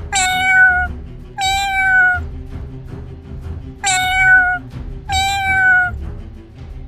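Domestic cat meowing four times in two pairs, each meow just under a second long and falling slightly in pitch, over soft background music.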